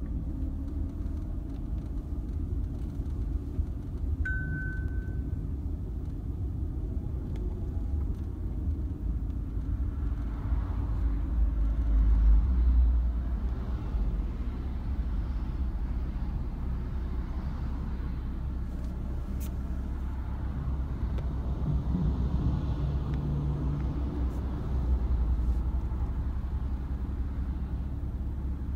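Low, steady rumble of a car's engine and tyres heard from inside the moving car's cabin, with one short high beep about four seconds in.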